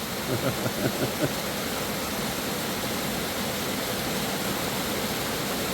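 Steady rush of fast-flowing water running down the rocks.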